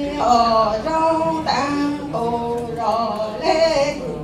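A solo voice singing Hmong lug txaj sung poetry in long held notes that step and glide up and down in pitch.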